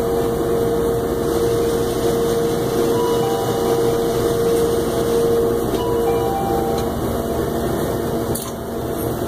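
Cash machine running during a withdrawal: a steady mechanical whir with a steady hum-like tone that stops about seven seconds in, and a short pair of beeps about every three seconds. A click comes near the end.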